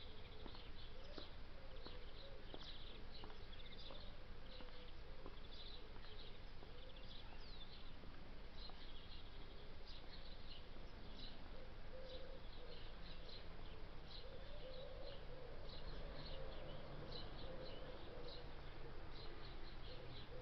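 Small birds chirping and singing throughout. In the first couple of seconds, a person's high-heeled footsteps click on the pavement and fade as they walk away.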